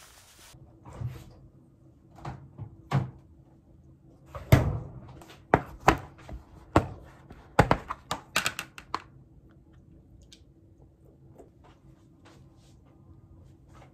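Plastic food container with a snap-on lid handled on a kitchen countertop, its lid pried off and set down: a string of sharp plastic knocks and clacks, densest and loudest in the middle, over a faint steady hum.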